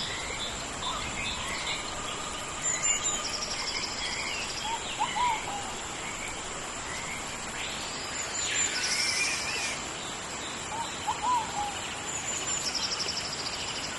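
Tropical rainforest rain ambience: a steady hiss of rain under a steady high-pitched drone, with birds calling over it in repeated short chirps and whistles.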